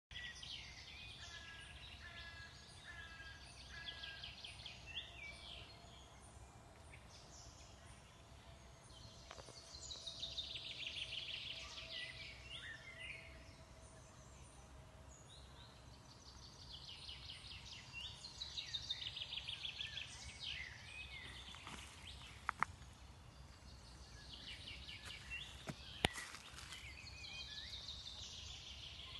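Songbirds singing, with phrases of rapid trills and chirps every several seconds over a low steady background rumble. Two sharp clicks come about three-quarters of the way through.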